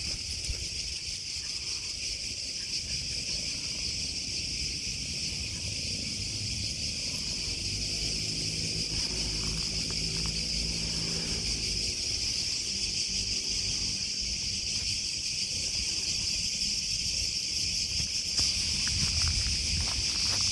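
A chorus of cicadas buzzing in a continuous high-pitched drone that never lets up.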